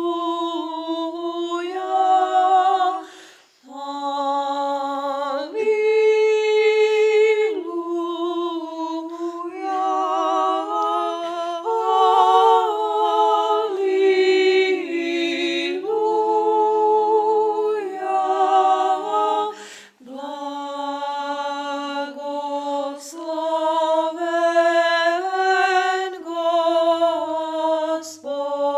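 Unaccompanied a cappella singing: long held notes with a slight vibrato, broken by short pauses about three and a half seconds in and again around twenty seconds in.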